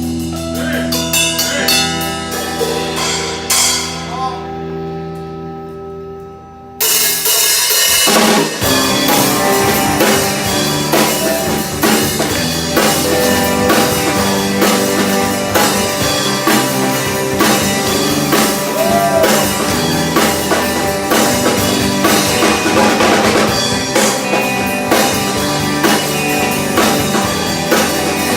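Amateur rock band playing live: a softer passage of sustained guitar and bass chords fading away, then about seven seconds in the full band with drum kit comes in loudly and plays on with a steady beat.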